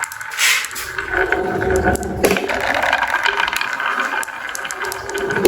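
Marbles rolling along a wooden marble run with a continuous rolling rumble and many small clicks as they knock against the track and each other.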